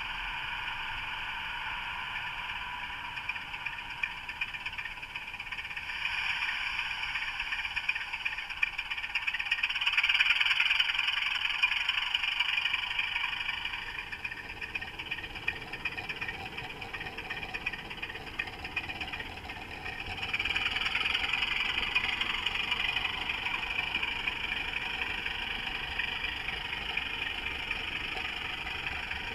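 Model railway locomotive running along the track, its small electric motor and gears whirring steadily. It heard close up, growing louder about six seconds in, easing off a little past the middle and picking up again about two-thirds of the way through.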